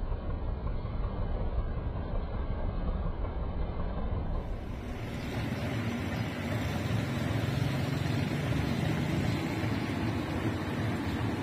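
Heavy diesel engine running steadily. It becomes somewhat louder and fuller about four and a half seconds in.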